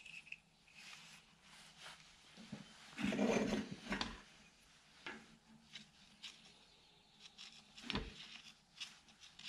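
Hands handling wires and small tools on a workbench: scattered rubbing and light clicks, with a louder rustling stretch about three seconds in and sharp ticks near the middle and near the end, over a faint steady low hum.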